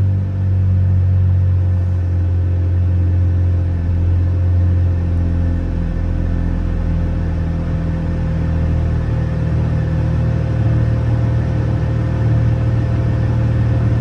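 2021 Dodge Charger GT's 3.6-litre V6 idling steadily through a rear-muffler-delete exhaust, its mid mufflers still in place: a low, even rumble at a settled, relatively quiet idle. A steady hum from nearby machinery runs underneath.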